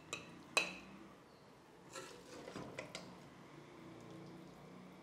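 Metal serving ladle clinking and scraping against a steel cooking pot and a ceramic plate while a thick spinach-chicken curry is dished out. One sharp clink comes about half a second in, followed by a few softer taps a couple of seconds later.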